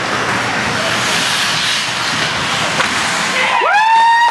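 Ice hockey rink noise of crowd and play, then near the end a loud siren-like tone winds up and holds as the goal goes in.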